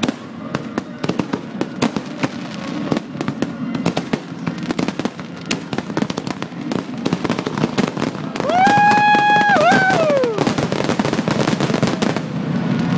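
Fireworks display: rapid crackling and popping bursts going off in quick succession. About eight and a half seconds in, a loud steady horn-like tone sounds over them for about two seconds, dipping in pitch briefly before falling away.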